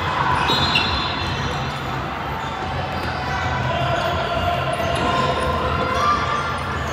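Basketball bouncing on a gym floor during game play, with short high squeaks over a steady background of court noise.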